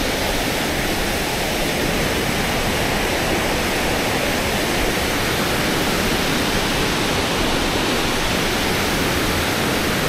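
Wesach Falls, a waterfall, pouring steadily: an even, unbroken rush of falling water.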